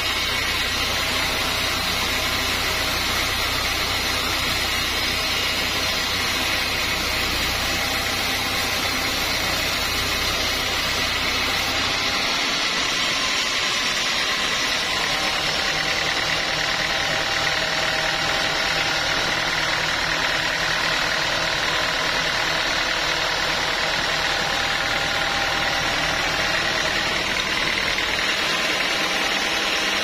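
Band sawmill machinery running steadily. About twelve seconds in, the deep rumble drops out and a steadier machine hum with a high whine continues.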